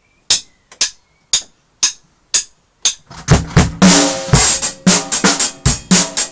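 Acoustic drum kit: six sharp clicks about two a second, then about three seconds in the full kit comes in, bass drum, snare and cymbals playing a steady beat.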